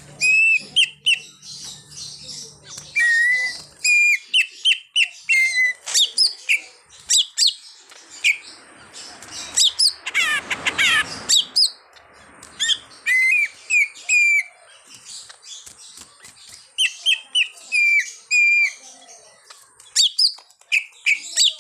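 Cucak ijo (leafbird) singing a busy run of short whistled chirps and slurred notes, broken about ten seconds in by a scratchy chatter of rapid falling notes.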